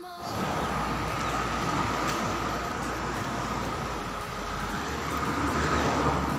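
Road traffic noise: a steady rush of passing cars.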